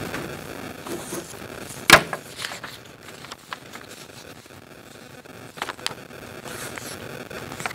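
Room noise with small knocks and rustles as paper ballots are collected from the tables. One sharp knock about two seconds in is the loudest sound, and a few lighter clicks follow near the end.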